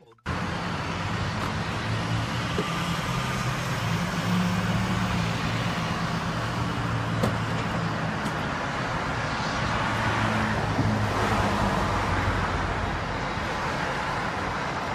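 UPS delivery truck's engine idling, a steady low hum under street traffic noise.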